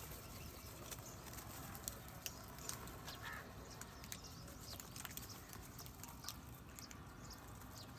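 Faint outdoor background with many brief, high-pitched bird chirps and ticks scattered throughout, and one short call about three seconds in.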